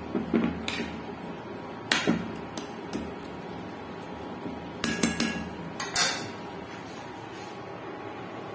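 Metal spoon stirring in a nonstick frying pan, scraping and knocking against the pan with a series of sharp clinks and knocks; the loudest cluster comes a little past the middle.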